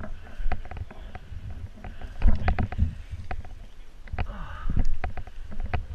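Rustling and footsteps of a person moving quickly through dry grass and brush, with irregular sharp clicks and knocks and low thumps from the body-worn camera being jostled.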